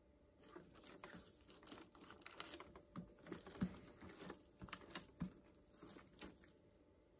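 Faint handling noise of a shrink-wrapped cardboard box of tins being picked up and turned over: plastic wrap crinkling, with scattered light taps and knocks, the loudest about three and a half and five seconds in.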